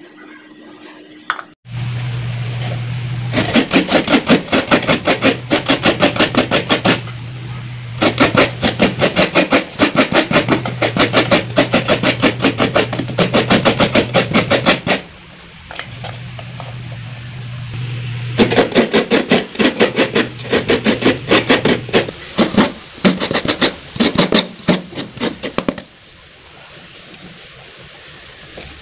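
Background music with a quick, steady beat over a sustained low bass note. It starts suddenly about a second and a half in, pauses briefly twice, and stops near the end.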